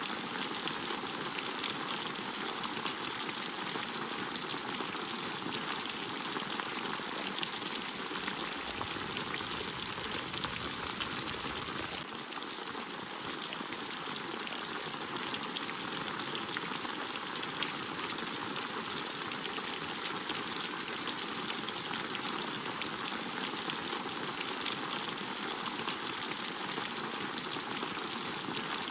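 Steady rain falling: an even hiss with scattered sharp drop ticks, its tone shifting slightly about twelve seconds in.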